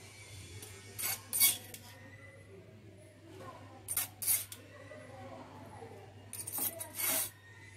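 Cooking spoon scraping and knocking against a nonstick pan while cooked rice is folded into a mashed potato and poppy-seed mixture: short strokes coming in pairs about every three seconds.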